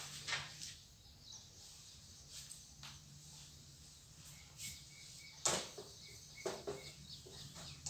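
Quiet room with a low steady hum and scattered faint knocks and handling noises as a person steps up to a whiteboard, the loudest knock about five and a half seconds in. A faint short high tone repeats a few times in the background.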